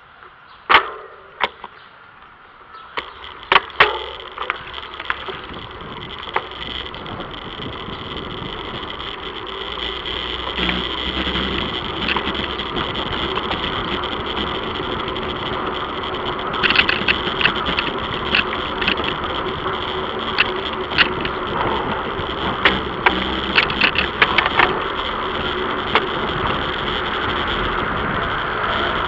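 Wind and road noise on an action camera riding on a moving bicycle, with sharp clicks and rattles of the bike and camera mount over bumps. The rushing noise builds over the first several seconds as the bike gathers speed, then holds steady.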